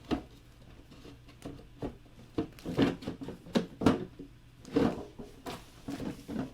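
Irregular clicks and knocks of hard plastic model-kit parts being handled while a small screw is fitted, with a few louder knocks near the middle.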